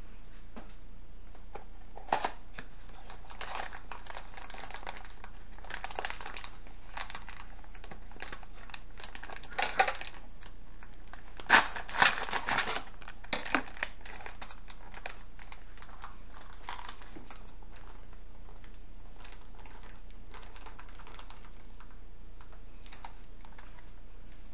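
Off-screen kitchen handling: light rustling and small clicks throughout, with a few louder knocks about ten seconds in and again around twelve to fourteen seconds in.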